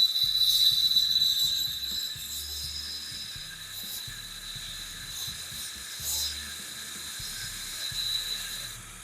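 Bauer 8-inch bench grinder driving a KFMK 2x48 belt grinder attachment, with a piece pressed against the running belt: a steady high-pitched whine with a hiss. It starts suddenly and stops near the end, leaving the low motor hum.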